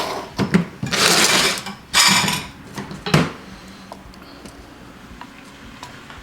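Metal hand tools clattering and scraping as a smaller pry bar is fished out from among them: three rattling bursts in the first couple of seconds and a sharp knock just after three seconds, then only faint clicks.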